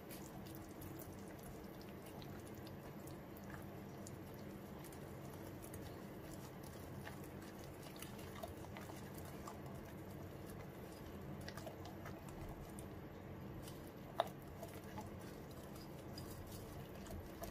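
Thick cake batter being stirred by hand with a small whisk in a glass bowl: a faint, steady stirring noise with scattered light clicks of the whisk against the glass, one sharper click about fourteen seconds in.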